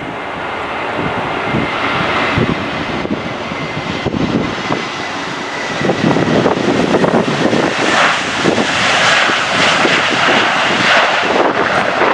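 Jet airliner engines on a landing approach: a steady whine at first, then a louder rushing roar from about halfway as the aircraft comes closer. Gusty wind buffets the microphone throughout.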